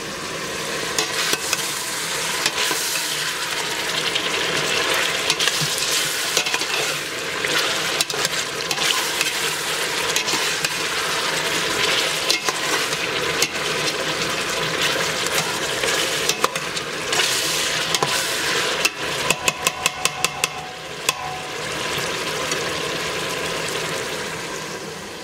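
Pieces of lamb with onion sizzling as they fry in a steel pot, stirred with a metal spoon that scrapes and clicks against the pot. A quick run of sharp clicks comes about three-quarters of the way through.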